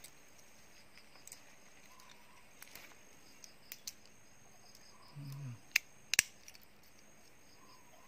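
Faint outdoor ambience with soft insect chirps coming back every couple of seconds. About five seconds in there is a short low hum, and soon after it two sharp clicks.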